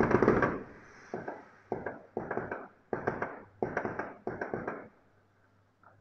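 Aerial fireworks bursting: a loud bang, then a string of six more bursts, each crackling briefly, a little over half a second apart, stopping about five seconds in.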